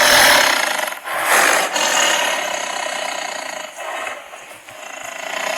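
A wild animal's call: a long, rough, hissing sound with no clear pitch, loudest in the first two seconds, then fading and swelling again near the end.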